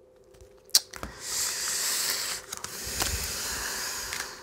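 Oracle cards being gathered up from a spread on a cloth: a sharp tap about three-quarters of a second in, then about three seconds of papery sliding and rustling as the cards are swept together and stacked.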